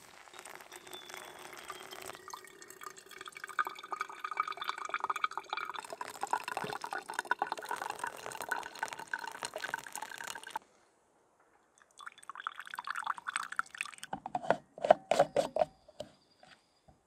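A thin stream of water poured over coffee grounds in a stainless steel mesh pour-over filter, a steady trickling fill for about ten seconds. After a short pause comes a run of sharp clicks and knocks as the lid is fitted onto the travel mug.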